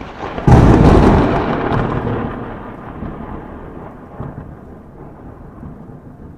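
Sound effect for an animated subscribe end screen. A short swell breaks into a sudden loud boom about half a second in, followed by a long noisy tail that fades away over the next few seconds.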